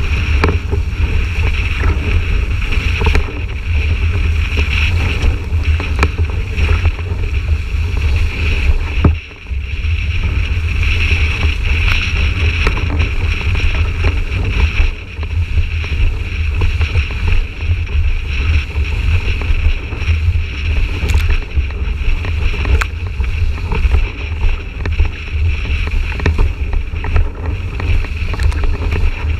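Wind buffeting the microphone of a boom-mounted action camera, with water rushing and splashing under a windsurf board sailing at speed. The rumble drops out briefly about nine seconds in.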